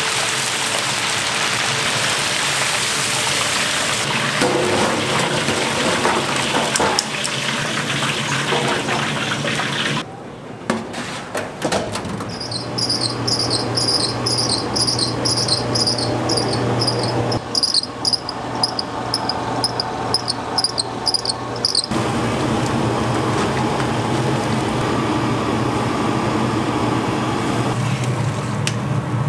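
Pork pieces sizzling in a wok of hot deep-frying oil for the first ten seconds. From about twelve seconds, an electric noodle machine's motor hums while its dough rollers give a regular high squeak, about two or three a second. For the last several seconds, a pot of noodles at a rolling boil hisses.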